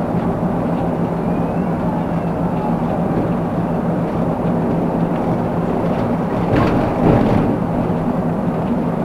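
Steady engine hum and road noise of a vehicle driving at a constant speed, with a short louder swell about seven seconds in.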